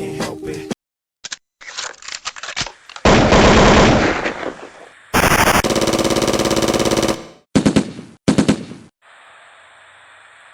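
Machine-gun fire sound effect: scattered shots building into a heavy volley, then one long rapid burst of about two seconds and two short bursts.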